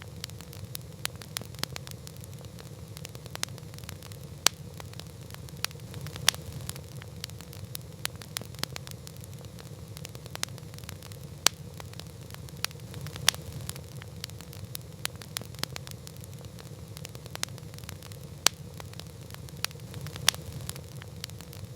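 Campfire crackling: irregular sharp snaps and pops, a few much louder than the rest, over a steady low rumble.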